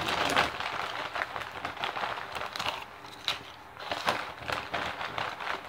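A Doritos chip bag crinkling as a hand reaches in and handles it, mixed with the crunch of tortilla chips being chewed: irregular sharp crackles throughout.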